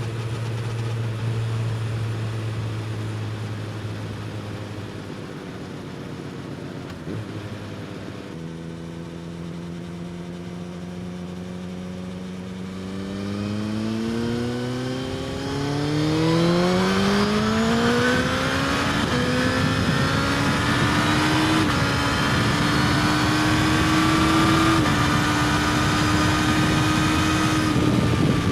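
Suzuki GSX-S1000's inline-four engine, fitted with an Austin Racing slip-on exhaust, accelerating hard. It starts low and steady. From about halfway the pitch climbs steeply, dips once at a gear change and climbs again. It then holds at high revs and louder for the last third, with a couple of small steps in pitch.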